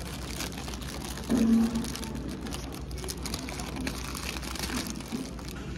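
Paper burger wrapper rustling and crinkling as it is handled. About a second in there is a louder short low tone.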